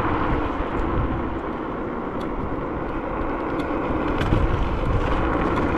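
Wind rushing over the microphone and tyres rolling on asphalt while riding an electric scooter, as a steady noise with an uneven low rumble that eases off for a couple of seconds in the middle. A few light ticks about two and four seconds in.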